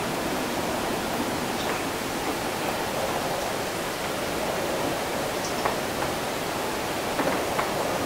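Steady rushing ambience of a windy city just after rain, an even wash of wind and wet-street noise, with a few faint ticks in the second half.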